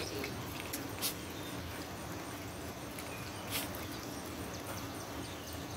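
Virginia opossum eating from a plastic bowl: small wet chewing and licking clicks, louder about a second in and again about three and a half seconds in, over a steady low background hiss.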